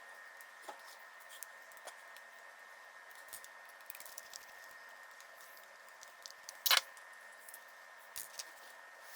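Small clicks and taps of hands handling and fitting small parts of an RC crawler's drivetrain, with one sharper click about two-thirds of the way through and two lighter ones near the end. A faint steady high hum runs underneath.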